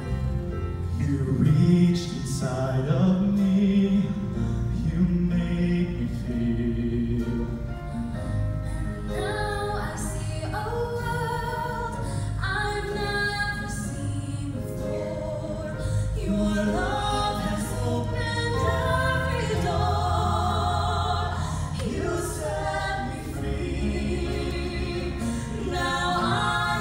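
Show choir of young mixed voices singing together, over a low accompaniment whose bass notes hold and change in steps.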